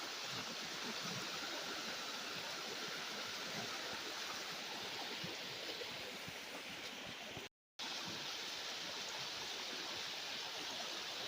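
Steady rushing of flowing water from a stream or falls, an even hiss with no changes, cut off by a short gap of silence about seven and a half seconds in.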